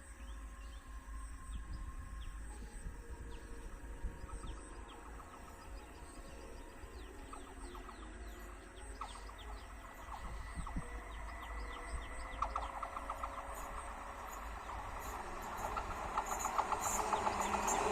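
Birds chirping over a low steady rumble as a local train approaches along the track, its rail noise growing steadily louder over the last few seconds.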